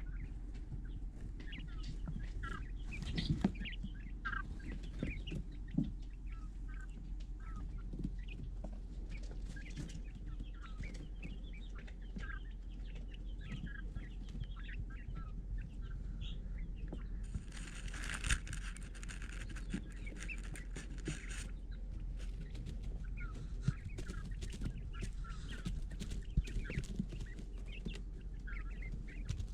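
Young quail and chicks peeping: many short, high chirps scattered throughout over a steady low hum. A hiss joins in for about four seconds midway.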